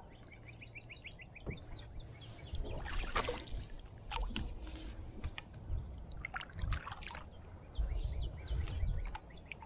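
Kayak paddle strokes in shallow water: several short splashes and drips as the blade dips and pulls. A bird chirps a quick run of about ten short notes in the first second and a half.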